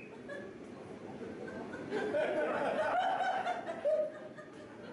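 People laughing and chuckling, loudest about two to four seconds in.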